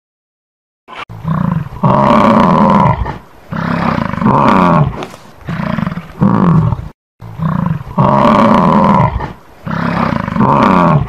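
A large animal roaring over and over: loud, deep calls a second or so long with short breaks between them, starting about a second in.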